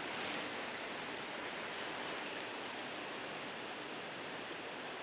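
Mountain stream flowing over rocks: a steady rush of running water.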